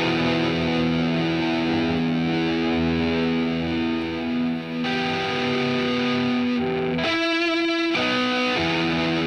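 Soundtrack music: long sustained chords that change about five seconds in and again about seven seconds in, with a brief shimmering passage around the second change.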